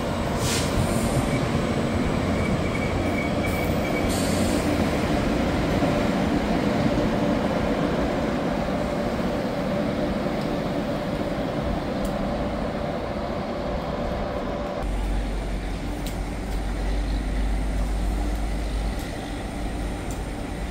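New Jersey Transit commuter train's passenger cars rolling past at the platform: a steady rolling rumble of steel wheels on the rails. About fifteen seconds in, the sound changes to a deeper low rumble as the end of the train goes by and draws away.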